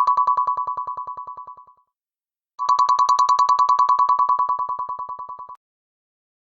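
Android phone ringtone for an incoming call: a high electronic trill, pulsing about ten times a second, in two rings with a short gap. The first ring fades away and the second cuts off suddenly.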